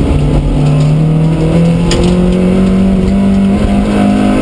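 A 1400cc Mk2 Vauxhall Astra rally car's four-cylinder engine, heard from inside the cabin, running at high revs under full acceleration, its pitch climbing gradually and then holding. A single sharp click comes about two seconds in.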